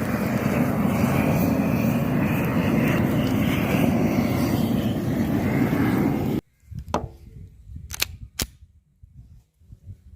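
Propane blowtorch burning with a steady rushing noise that cuts off suddenly about six seconds in. A few faint sharp clicks follow.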